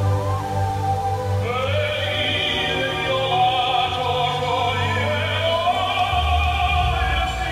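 Operatic classical music with orchestra, with a singing voice coming in about a second and a half in.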